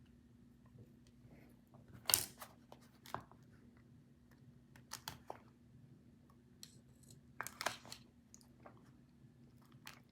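Short crisp snips and clicks of small hand tools working on a lace wig, in a few separate clusters spaced a second or two apart, over a faint steady hum.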